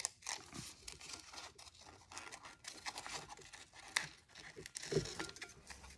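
Scissors snipping through a sheet of tracing paper, the paper crinkling and rustling as it is turned, with a light knock about five seconds in.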